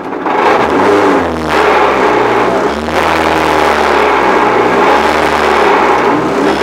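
Renault Clio R3 rally car's two-litre four-cylinder engine pulling hard under full acceleration, heard from inside the car: the revs climb and drop sharply with quick upshifts about a second and a half apart, then a longer climb through the next gear.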